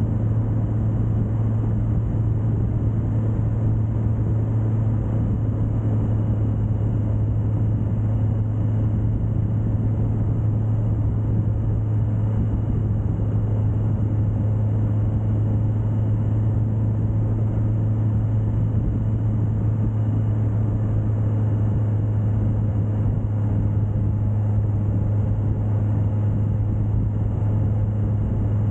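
Suzuki GSX1250FA's inline-four engine running at a steady cruise, with a constant low drone and no change in revs, under an even rush of wind and road noise.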